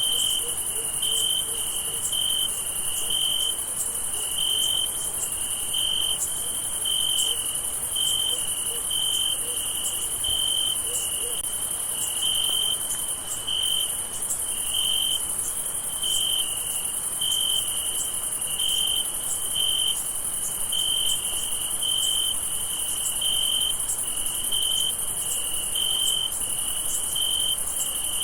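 Night chorus of crickets: a steady high-pitched insect hum, with one louder, lower-pitched cricket chirping in short, evenly spaced pulses, a little more than one a second.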